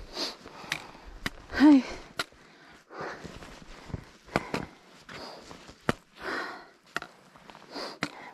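A hiker breathing hard, with sharp footfalls on rock and grit about every second. A brief voiced sound, like a grunt or hum, comes about two seconds in and is the loudest moment.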